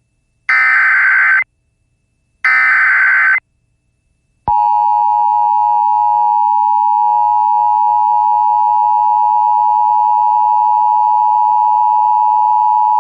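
NOAA Weather Radio Emergency Alert System signal: two buzzy digital data bursts of about a second each, the end of the SAME alert header that encodes the tornado warning. After about a second of silence, the long steady warning alarm tone starts about four and a half seconds in, announcing that the spoken warning follows.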